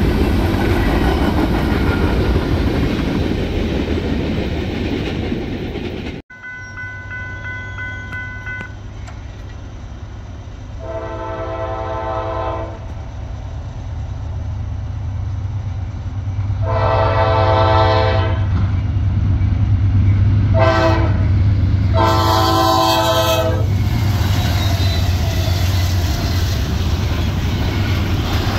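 A freight train rolling past with its wheels clacking over the rail joints. After a sudden cut, a diesel freight locomotive's engines run as it draws nearer, and its multi-chime air horn sounds the grade-crossing signal: two long blasts, a short one and a long one.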